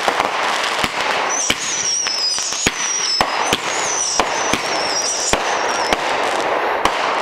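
Consumer fireworks going off close by: a continuous crackling hiss punctuated by irregular sharp bangs. A wavering high whistle runs from about a second in until a little past the middle.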